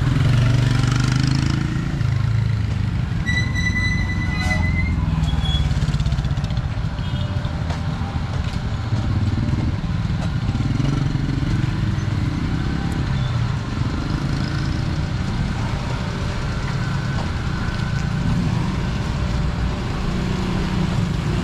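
Street traffic: motorcycle and small-vehicle engines running and passing close by, a steady rumble that swells and fades. About three seconds in, a brief high tone sounds for about a second and a half.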